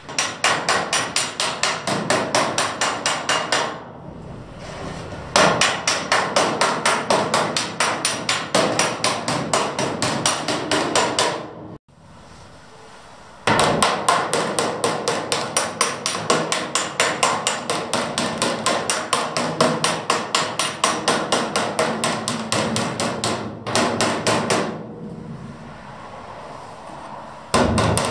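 Body hammer striking a bare aluminium car body panel against a dolly: rapid, even blows at several a second. The blows come in runs broken by short pauses at about four seconds, twelve seconds and twenty-five seconds in.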